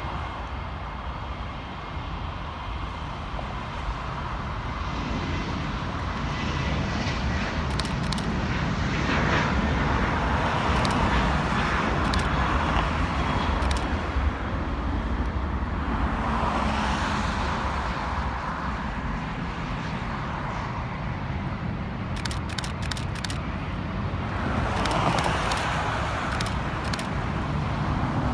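Airbus A350-900 jetliner's Rolls-Royce Trent XWB turbofans on landing: a steady jet rumble and rushing that swells and eases twice, with a faint high engine whine for the first few seconds.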